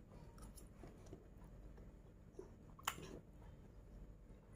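Near silence: faint chewing of a mouthful of fried rice, with a single light click about three seconds in.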